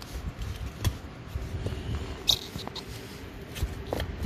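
Scattered small clicks and knocks of a carburetor and its rubber hoses and clamps being twisted and worked loose by hand, with two sharper knocks about one second and two seconds in, over a low handling rumble.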